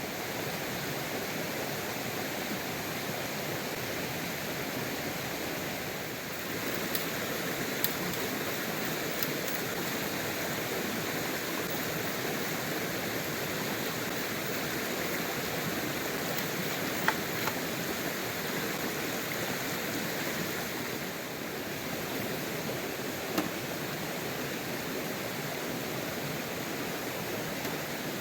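Steady rushing of a flowing river, with a few brief sharp ticks scattered through.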